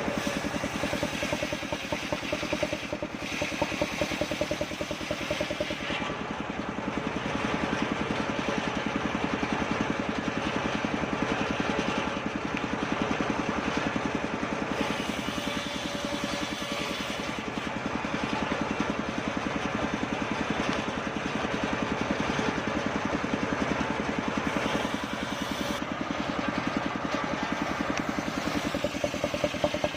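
Engine of a homemade circular sawmill running steadily, with an even, rapid engine pulse, while it rips kapok logs.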